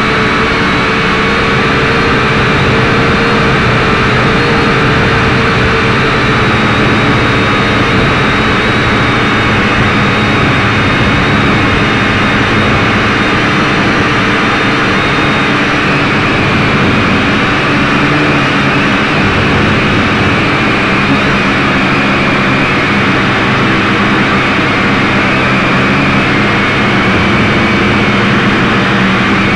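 Syma X5C-1 quadcopter's four small brushed electric motors and propellers running, heard through the drone's own onboard camera: a loud, steady whine that wavers slightly in pitch as it flies.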